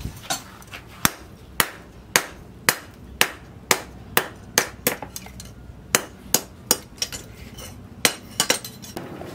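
Hand hammer forging a red-hot steel blade on a round steel stake anvil: sharp metal-on-metal blows at about two a second, with a couple of short pauses.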